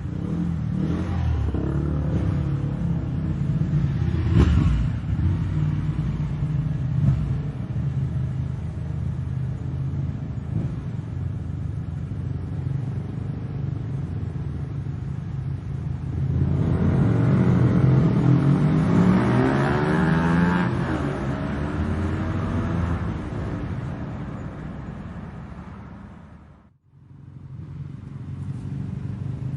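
Motorbike engines rumbling and revving, with a louder stretch about halfway through where the engine note rises and falls as it revs. Near the end the sound fades out almost to nothing and then comes back.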